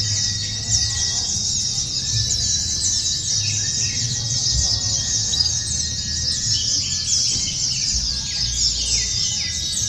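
Many white-eyes (pleci) singing at once, a dense, unbroken chorus of rapid high twittering like a songbird contest, with a low hum underneath.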